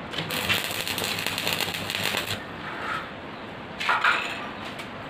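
Stick (arc) welding tack welds on square steel tubing: the arc crackles and spits for about two seconds, then strikes again in a shorter burst about four seconds in.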